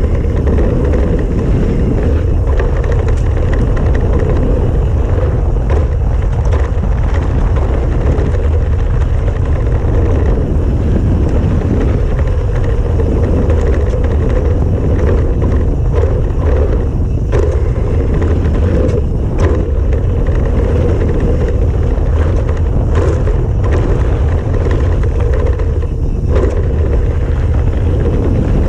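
Wind buffeting the microphone of a mountain bike's low-mounted action camera, over tyres rumbling on a dirt trail at speed, with frequent rattles and knocks from the bike as it hits bumps.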